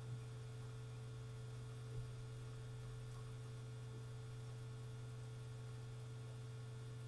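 Steady low electrical hum picked up by a laptop's built-in microphone, with two faint soft taps, one at the start and one about two seconds in.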